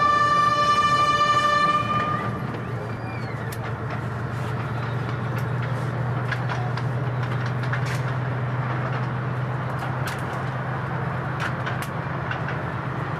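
Steam locomotive whistle blowing one steady note that cuts off about two seconds in. After it the train runs on with a steady low rumble and scattered sharp clicks and knocks.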